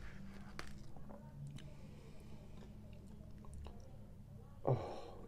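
Close-miked eating sounds: a plastic fork scraping through food in a styrofoam container and chewing, faint, with a few small clicks. A short, louder mouth sound comes near the end.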